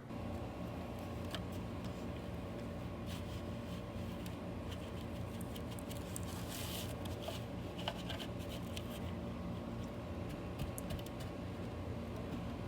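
Vacuum cleaner running with a steady motor hum, with scattered crackles and clicks of debris being sucked up, busiest in the middle.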